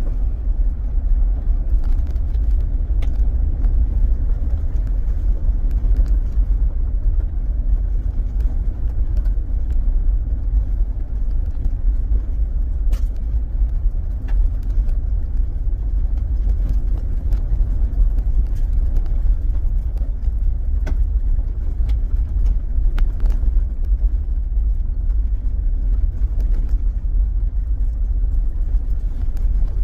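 A car driving steadily along a road: a constant low rumble of engine and road noise, with an occasional faint tick.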